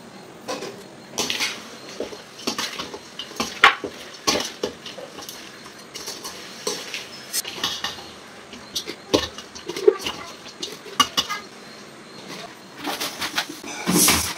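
Stainless steel bowls and plastic jars knocking and clinking on a kitchen counter in irregular clatters as chillies are mixed and packed into jars for pickle. The knocks come thicker near the end.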